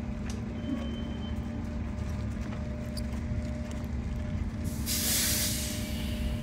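Steady low rumble and hum of engine or traffic noise, with a loud burst of hissing about five seconds in that lasts about a second and a half.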